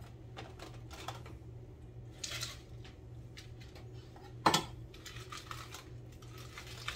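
Lettuce being fed through a Pampered Chef Rapid Prep Mandolin slicer: scattered light plastic clicks and rustling leaves as the plunger and chute are worked. One sharp clack comes about midway.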